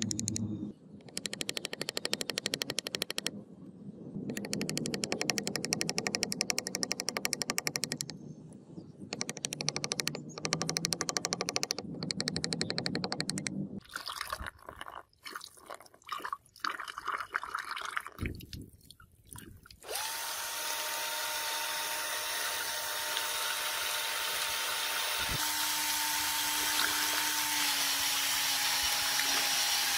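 A hand cutting tool scraping the grooves of a handle in the vise, chattering in quick bursts for the first half. After about 20 seconds a cordless drill runs steadily with a whining motor, its pitch dipping slightly near the end, spinning a sanding disc in splashing water.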